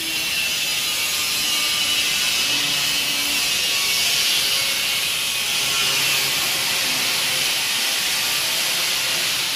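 Semi-automatic kitchen towel plastic bag packing machine running: a loud, steady mechanical hiss, strongest in the high register, with faint short hums beneath it.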